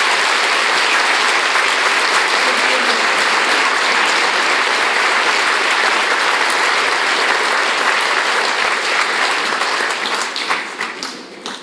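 Theatre audience applauding, a dense steady clapping that thins out and dies away near the end.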